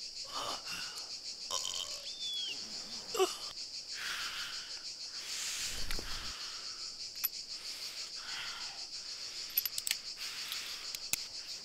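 A steady high-pitched chorus of insects, with several heavy, wheezing breaths from a man about halfway through and a few faint clicks later on.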